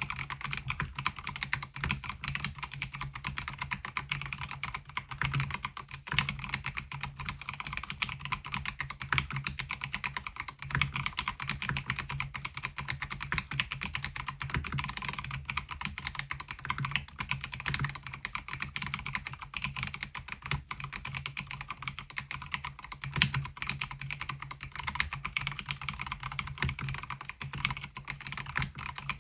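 Fast, continuous typing on a MelGeek Mojo68 mechanical keyboard fitted with MOA-profile keycaps: a dense, unbroken patter of keystroke clicks.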